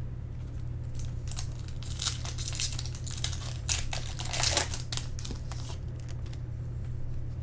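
Foil wrapper of a 2010 Bowman Draft baseball card pack being torn open and crinkled in irregular short crackles, over a steady low hum.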